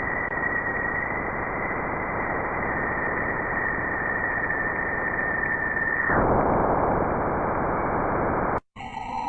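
Space-sound concept audio: a steady static-like hiss with a thin, high, steady whistle over it that stops about six seconds in. Near the end the hiss cuts off abruptly and a different sound of several steady, eerie tones begins.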